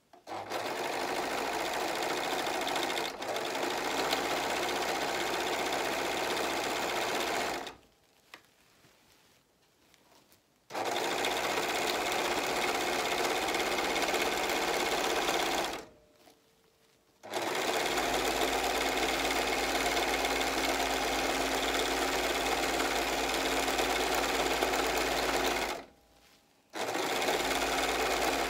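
Four-thread serger (overlock machine) stitching and trimming sequined fabric, running in steady stretches with three short pauses, about 8, 16 and 26 seconds in, as the fabric is repositioned.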